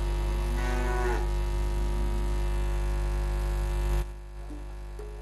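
Sustained musical tones held over a steady mains hum from the sound system. The tones cut off suddenly about four seconds in, leaving only a quieter hum.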